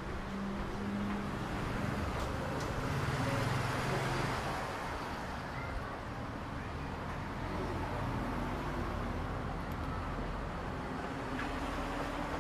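City street traffic: motor vehicle engines passing, one growing louder about three to four seconds in, over a steady background hum of traffic.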